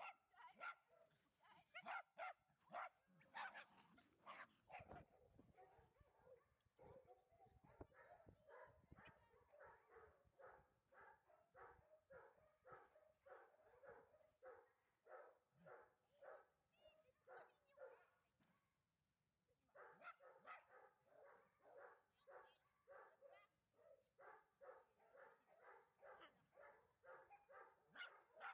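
Dogs barking: a few louder barks at first, then one dog barking over and over in an even run of about three short barks a second, pausing for about a second roughly two-thirds through before carrying on.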